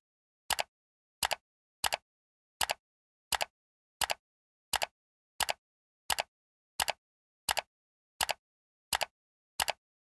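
Short, sharp double clicks repeating evenly, about three every two seconds, with dead silence between them.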